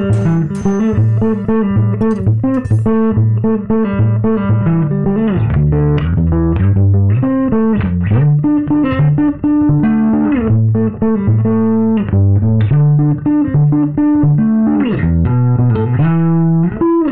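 G&L electric bass guitar played fingerstyle through an Orange bass combo amp: a riff of plucked notes, some held and some sliding up or down in pitch.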